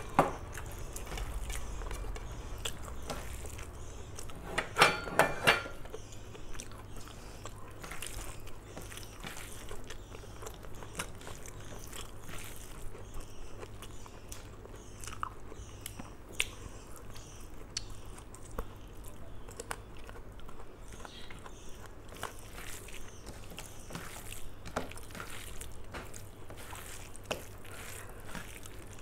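Eating by hand: rice mixed with mutton curry gravy squeezed together on a steel plate, and chewing with many small wet mouth clicks. About five seconds in, a brief louder sound with a ringing pitch.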